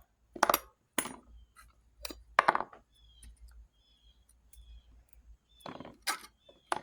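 Small metal soldering-iron parts (tips, cover, bolt) clinking and tapping as they are handled: about six separate sharp knocks with quiet gaps between.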